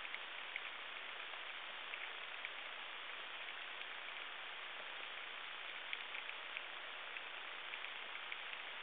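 Underwater reef ambience: a steady hiss with scattered short clicks, several a second at uneven spacing.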